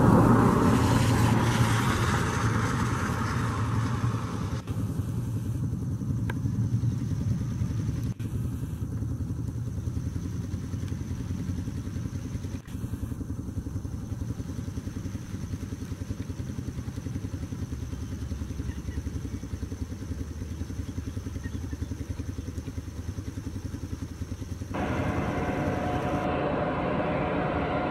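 ATR twin-turboprop airliner at takeoff power rolling away down a wet runway: a propeller drone with a fine, even pulsing, loudest at the start and fading as it pulls away. Near the end it gives way abruptly to the steady engine sound of a Boeing 737 jet on approach.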